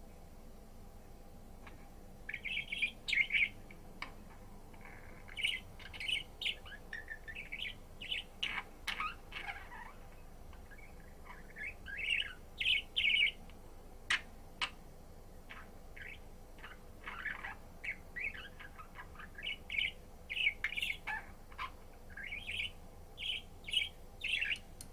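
Budgerigar chattering in quick runs of short chirps and warbles, starting about two seconds in, with a few sharp clicks among them.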